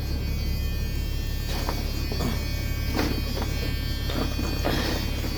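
Motorhome engine idling, a steady low buzzing hum, with a few faint knocks.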